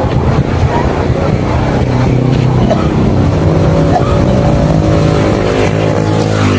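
Road traffic on a highway: motorcycle and car engines running as vehicles pass, with a steady engine hum that grows clearer in the second half.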